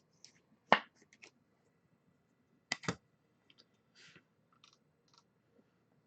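Trading cards and their packaging being handled: a few sharp clicks, the loudest about a second in and a close pair near three seconds, with faint short rustles between.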